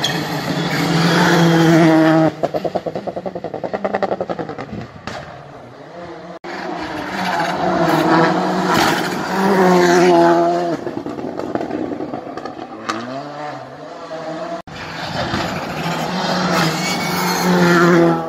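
Rally cars passing one after another at full throttle: three loud passes of a high engine note, each dropping off after the car goes by into a rapid crackle. Abrupt cuts separate the passes.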